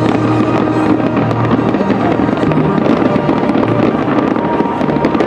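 Fireworks crackling and popping in quick succession over music with long held notes.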